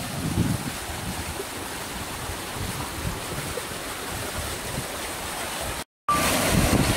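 Wind buffeting the microphone over the steady rush of a mountain stream. Near the end the sound drops out for an instant and comes back louder, with the splashing rush of a small waterfall.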